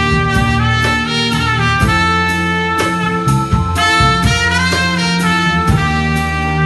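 Live jazz band: a trumpet plays a melodic line of held notes with pitch bends, over a drum kit keeping time about twice a second and low bass notes.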